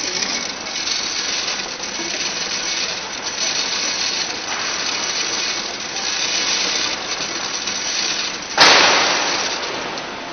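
Automatic weighing and bag-filling machine running with a steady mechanical clatter and hiss. About eight and a half seconds in, a sudden loud rush starts and fades away over about two seconds.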